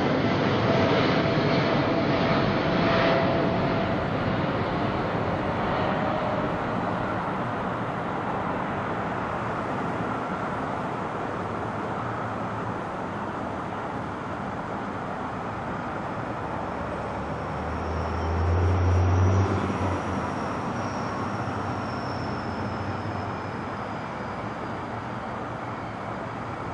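Jet engine noise from a twin-engine Boeing 777-200 on approach with its landing gear down, loudest as it passes overhead and then fading slowly as it flies away. A brief low rumble swells and dies about two-thirds of the way through.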